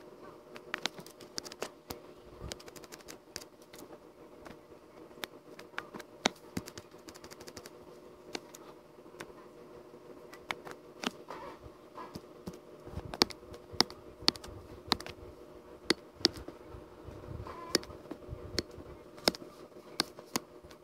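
Computer keys clicking at irregular intervals, a few loud clicks among many faint ones, over a steady low electrical hum, with a few dull bumps in the second half.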